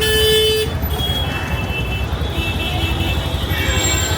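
Road traffic running steadily, with a short vehicle horn toot right at the start and a few fainter horn tones later.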